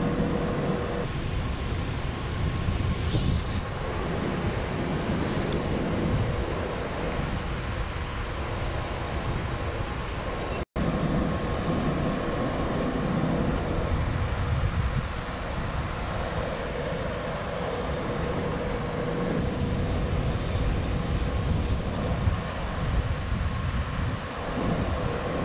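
Steady low rumbling roar with a faint steady hum over it, cutting out for an instant about eleven seconds in.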